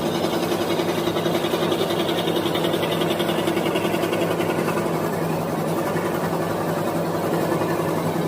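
Small electric woodworking machine running steadily while cutting wood, with a fine rapid pulsing and a higher whine that drops slightly about halfway through as the load changes.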